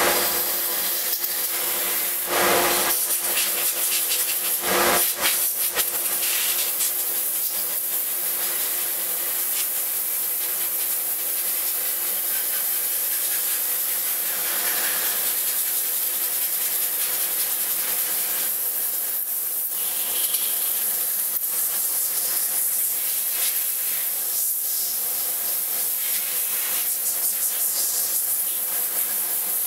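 Wooden speargun being sanded by hand with sandpaper: a steady rubbing noise.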